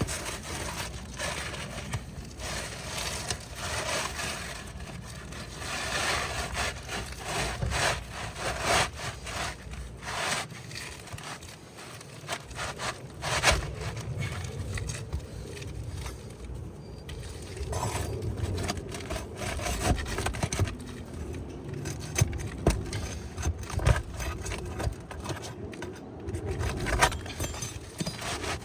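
Asphalt roofing shingle being worked into place under the course above, scraping and rubbing against the surrounding shingles, with scattered sharp knocks.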